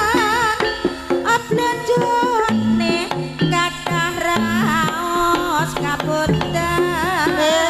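Live Javanese jaranan music over a PA system: quick kendang drum strokes under a high melody held in long notes with a wide, wavering vibrato.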